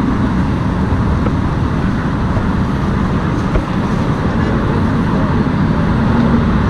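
Steady road traffic noise from cars crossing the bridge on the roadway beneath the pedestrian walkway, a continuous low rumble.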